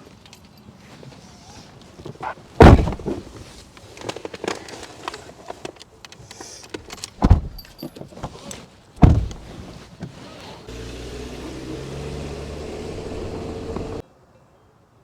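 Car doors shutting with loud thumps three times amid smaller knocks and rattles, then a car engine running steadily for a few seconds before cutting off suddenly.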